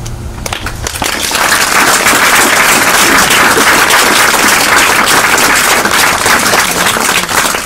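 Audience applauding at the end of a song. The clapping starts with a few scattered claps, swells into full applause about a second in, and thins out near the end.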